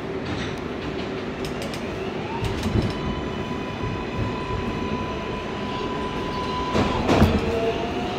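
New York City subway train in a station, with a steady electric hum and rumble. About two seconds in, a rising whine levels off into a steady tone that holds for about four seconds, and a burst of clattering noise comes near the end.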